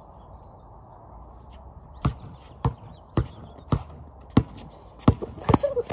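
Basketball dribbled on a concrete driveway: a steady run of about seven bounces, a little under two a second, starting about two seconds in.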